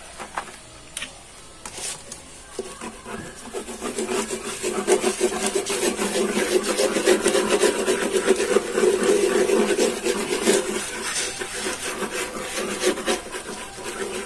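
Rapid, scratchy rubbing of a glue tube's nozzle across paper and wood as glue is spread to stick sandpaper onto a sanding disc. It starts faint and turns steady and louder from about four seconds in.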